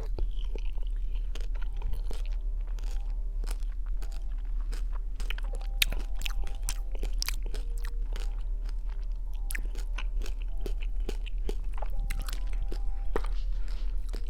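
Close-miked biting and chewing of juicy dragon fruit, with many small wet clicks and crackles in the mouth.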